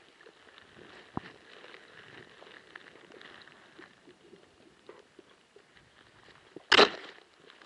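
Faint crackle and hiss from a camera filming underwater, with a small click about a second in and one short, loud knock near the end.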